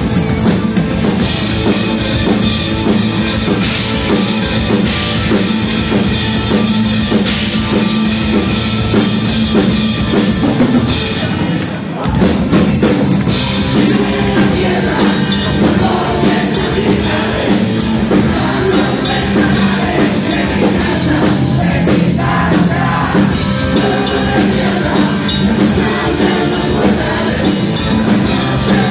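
Live rock band playing loud, with electric guitars, a drum kit and a singer. There is a brief drop about twelve seconds in before the full band comes back.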